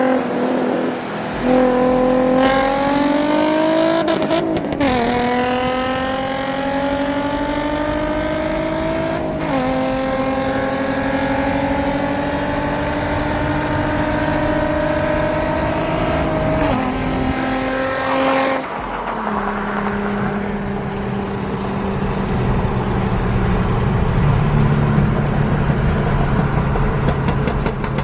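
Car engine accelerating hard through the gears: its pitch climbs steadily and drops sharply at each of three upshifts, then settles into a steady cruising drone for the last third.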